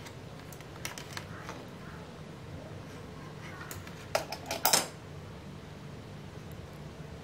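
Small hard clicks and taps of a miniature model car being handled in the fingers: a few faint ones about a second in, then a quick cluster of louder clicks a little past the middle, over a faint steady low hum.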